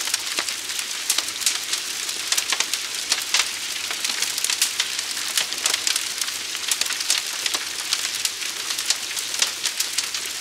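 Fire crackling: a steady hiss with many irregular sharp pops and snaps.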